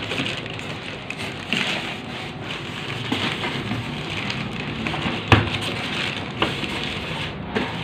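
Plastic wrap crinkling and polystyrene foam packing rubbing as hands grip and shift a boxed printer in its packaging, with a sharp knock about five seconds in.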